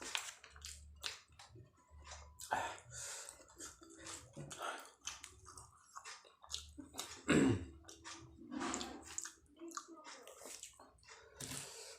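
Close-up wet chewing and mouth sounds of someone eating martabak telur, a stuffed savoury egg pancake, with chillies: irregular smacks, squelches and clicks. One short, louder sound with a falling pitch comes about seven seconds in.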